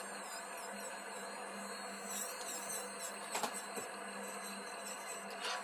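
Electric nail drill running with a fluted metal bit against a fingernail, filing off gel polish: a steady motor whir with a wavering high whine and a grinding hiss. Two brief ticks, about three and a half seconds in and near the end.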